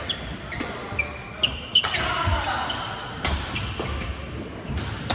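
Badminton rally: repeated sharp racket hits on the shuttlecock, several times over, with short high squeaks of court shoes on the mat about a second in.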